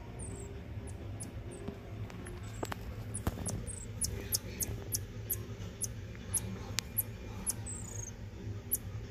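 Baby common marmoset calling with rapid, very high-pitched chirps and a few short falling whistles. The calls come about two or three a second from about three seconds in, over a steady low hum.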